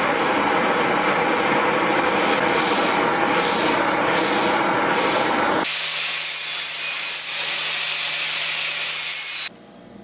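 Makita angle grinder with a sanding disc grinding the edge of a steel blade: a loud, continuous rasping with a wavering pitch. Just past halfway it turns to a thinner hiss over the grinder motor's steady hum, then cuts off suddenly near the end.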